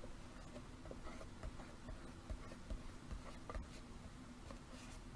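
Small craft scraper rubbing glued paper flat inside a cardboard box to seal it down: faint, irregular scratchy strokes with small ticks.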